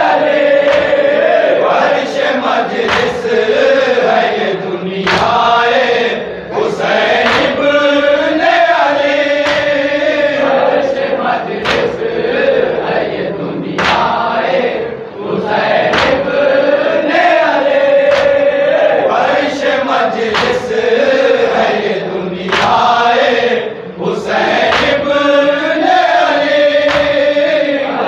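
Men's group chanting a Shia mourning salam (nauha) in unison, led by a reciter, with sharp chest-beating (matam) slaps about once a second.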